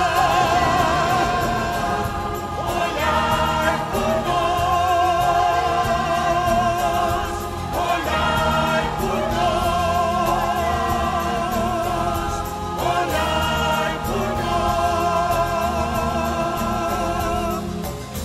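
A church choir singing a hymn with vibrato, in long held phrases with short breaths between them, over instrumental accompaniment.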